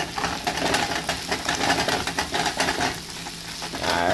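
Canned corned beef and onions sizzling in a nonstick frying pan while a fork breaks up the beef, with many quick scrapes and taps against the pan.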